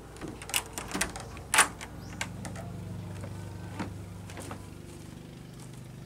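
Wooden door being opened by its knob: a quick run of latch clicks and knocks, loudest about a second and a half in, followed by a few more scattered knocks over a steady low hum.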